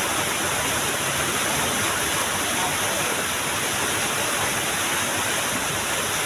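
Small waterfall rushing steadily: a continuous, even roar of falling water.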